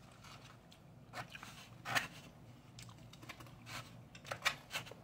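White plastic spoon scraping and clicking against a styrofoam takeout container in short, irregular strokes while food is scooped up, with some chewing.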